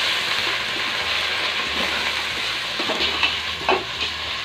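Raw beef pieces sizzling steadily in hot oil on golden fried onions and ginger-garlic in an aluminium pot, the meat just added to the pan. A few light knocks come in the second half.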